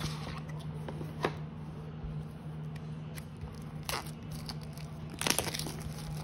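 Flash-card packaging being handled and opened: short crinkling rustles about a second in and again about four seconds in, then a louder, longer crinkle about five seconds in, over a steady low hum.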